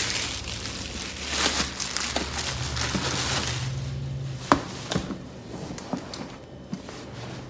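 Plastic shopping bag rustling and crinkling as a wrapped purse is pulled out of it, then softer handling of the white wrapping. A couple of sharp taps come around the middle.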